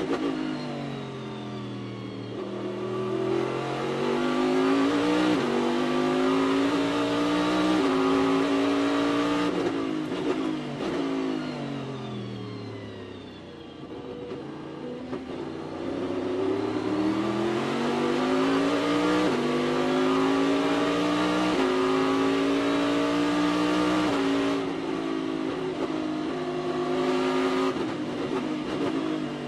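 Onboard sound of a Corvette Daytona Prototype's V8 at racing speed. It pulls up through the gears with a sharp drop in pitch at each upshift, falls away as the car slows for a corner about 13 seconds in, then climbs through the gears again.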